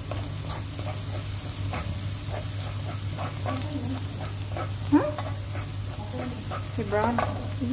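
Minced garlic sizzling in melted butter in a nonstick pan, stirred and scraped around by a spatula, over a steady low hum. A few short pitched sounds, like a voice or a pet, come in the background about five and seven seconds in.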